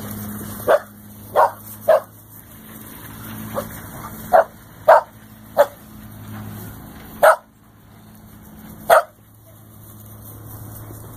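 Puppy barking in about nine short, sharp yips at irregular intervals, over a steady low hum.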